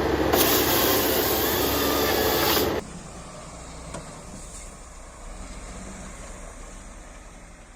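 Loud, harsh noise of logging machinery at work that cuts off abruptly under three seconds in, leaving a low engine hum that fades away.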